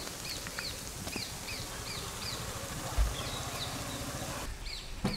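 Butter sizzling under pav buns toasting on a wide pan, a steady hiss that stops shortly before the end. Over it come high chirps repeating two or three times a second, and there is one low thump about three seconds in.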